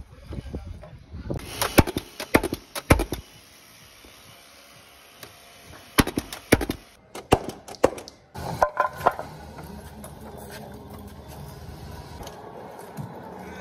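Paslode Impulse cordless gas framing nailer driving nails into pine framing timber: a string of sharp shots in two bursts, then steady background noise for the last few seconds.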